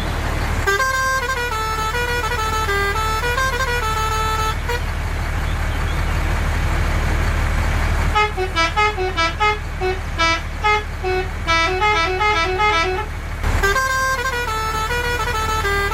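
A simple electronic beeping melody from a battery toy, played in short phrases with a pause in the middle, over a steady low motor hum.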